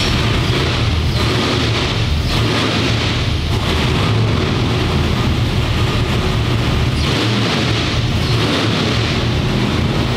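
Boosted LS V8 engine with a very large camshaft running on an engine dyno, a loud, steady low drone.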